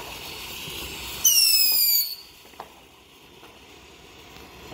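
Ground fountain firework hissing as it sprays sparks. About a second in, a loud shrill whistle sounds for just under a second, falling slightly in pitch, then stops suddenly and the hiss carries on quieter with a few faint crackles.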